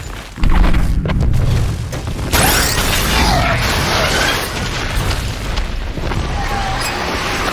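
Building explosion sound effect: a sudden deep boom about half a second in, then a second, sharper blast about two seconds later that runs on as a long, heavy rumble.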